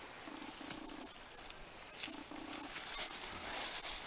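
A metal detector sounding a few short, low beeps, two near the start and two about halfway through, over the scrape and rustle of digging in dry leaf litter and soil.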